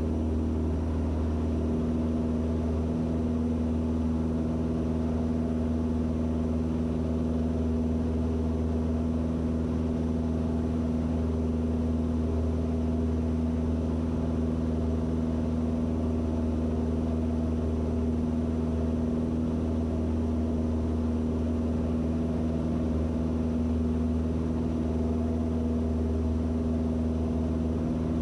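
Van's RV6A light aircraft's piston engine and propeller giving a steady, unchanging drone in the cockpit during departure.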